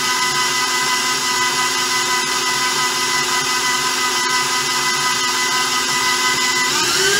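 KitchenAid stand mixer running, its beater working flour and shortening into pie dough as cold water goes in. It makes a steady motor whine, and the pitch rises just before the end.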